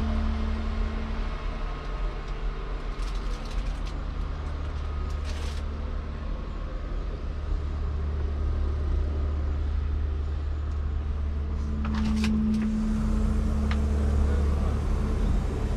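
Deutz-Fahr 8280 TTV's 6.1-litre six-cylinder twin-turbo diesel idling, heard from inside the cab: a steady low drone with a hum, and a few short clicks.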